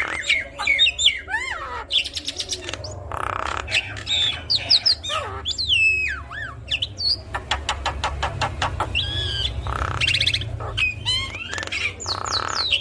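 Javan myna singing a varied, busy song: gliding whistles, harsh squawking calls and fast clicking rattles, over a steady low hum.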